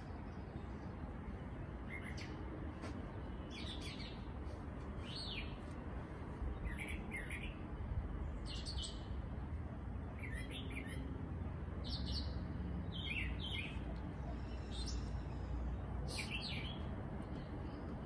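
A bird calls about ten times, each a short high chirp or pair of chirps a second or two apart, over a steady low background rumble.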